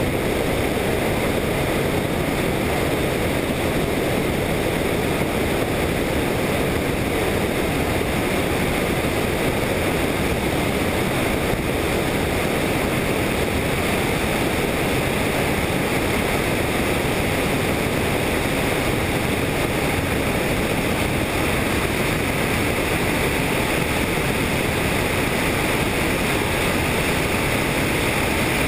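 Helicopter in flight: a steady, loud rushing noise of engine and rotors that does not change.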